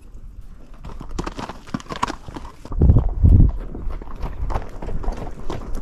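Hooves of pack horses and mules clip-clopping at a walk on a dirt trail, with two heavy low thuds about three seconds in.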